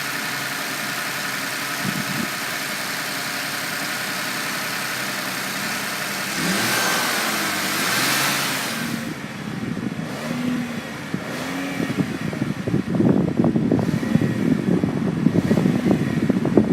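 2017 Lincoln MKZ's 3.0-litre twin-turbo V6 running at a steady fast idle just after starting. About seven seconds in it revs up once and settles back. It runs more unevenly in the last few seconds.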